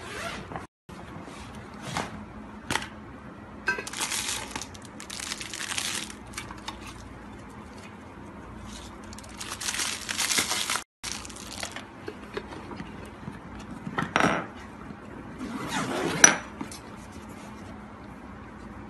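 Hands rummaging through clothes and toiletries in a packed suitcase: fabric rustles in several short bursts, and small bottles, tins and containers click and clink as they are picked up and handled, with one sharp clink near the end.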